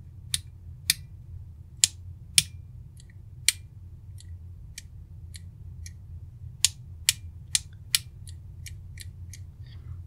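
Cheap miniature red rocker switches on a PCB switch panel clicking on and off, about twenty clicks in turn, some sharp and some weaker. One of the switches, heat-damaged when it was desoldered, sounds different from the rest: it is knackered.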